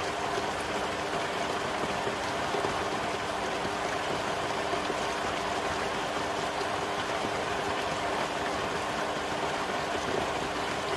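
Pool pump running with water rushing through an XtremepowerUS 24-inch sand filter's multiport valve set to waste, the water being sent out of the system rather than back to the pool. A steady rushing with a low, even hum under it.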